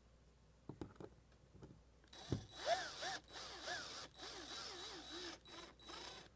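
A few light clicks and a thump, then a cordless drill/driver runs in several short bursts, its motor speeding up and slowing as it drives self-tapping screws to fix a camera bracket.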